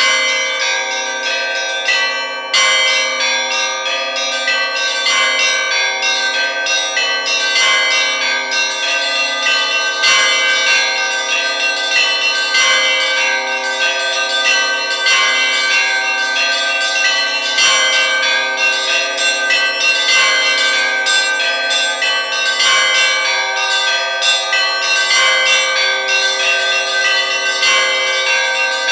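Russian church bells rung by hand in the belfry's chiming style: small bells struck in a quick, continuous rhythm over the sustained ringing of the larger bells. The ringing breaks off for a moment about two seconds in, then carries on.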